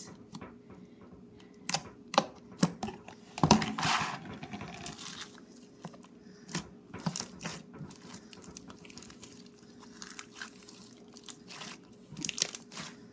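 Hands squishing, stretching and pressing a yellow Floam slime, giving scattered crackling, crunchy clicks and small pops. A louder thump comes about three and a half seconds in.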